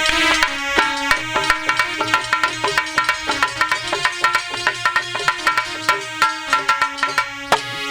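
Instrumental interlude of a Hindi devotional bhajan: hand drums in the tabla style play a quick, steady beat under a held melody on a keyboard instrument.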